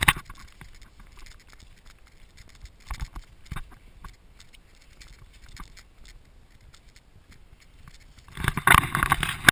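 A hiker's footsteps on a wet dirt trail, with pack gear clinking and rustling, as scattered short knocks and scrapes. Near the end a louder stretch of close rustling takes over.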